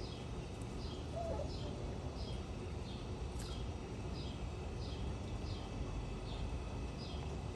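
A bird chirping over and over, short high chirps that fall in pitch, about one and a half a second in an even rhythm, over a steady low background rumble.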